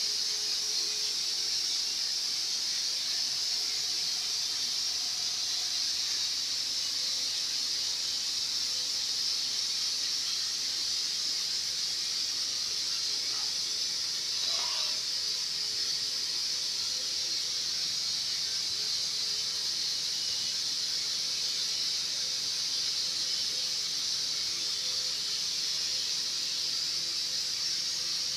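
A steady high-pitched hiss at an even level, with a faint click or two about halfway through.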